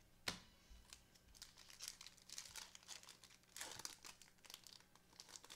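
Foil trading-card pack wrapper being torn open and crinkled by gloved hands: faint, scattered crackles, with one sharp snap just after the start.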